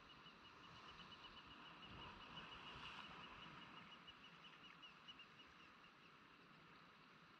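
Faint wash of small waves against a rock jetty, with a faint, even, high ticking, about five ticks a second, that fades out about two-thirds of the way through.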